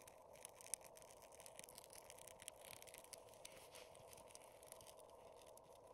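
Faint, irregular crackling and snapping of newly lit kindling catching on top of a stacked split-log tower fire, over a faint steady background noise.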